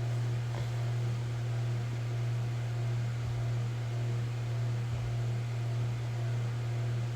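A steady low hum with a light hiss, unchanging in level.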